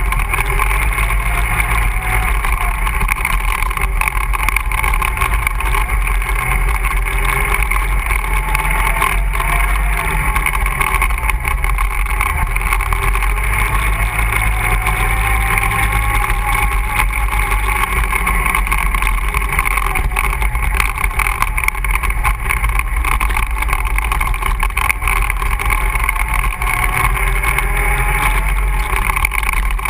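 ATV engine running continuously while riding, its pitch rising and falling gently with the throttle.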